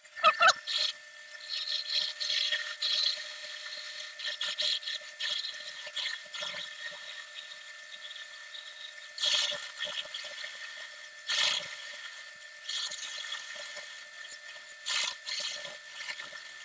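Woodworking power tool running with a steady high whine, wood being cut in irregular bursts of scraping noise.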